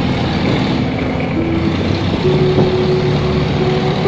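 Boat diesel engines running hard under heavy load, over a steady rush of fast-flowing water. The engine note shifts slightly up and down.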